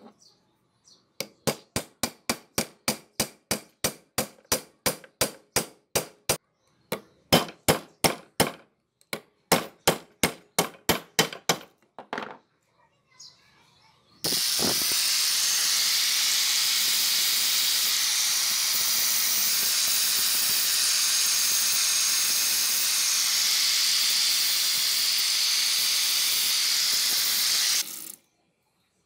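Hammer blows on a nail held in a wooden block against the steel tang of an old cleaver, about three sharp knocks a second in several runs. This is followed by a loud steady hiss for about fourteen seconds that cuts off suddenly.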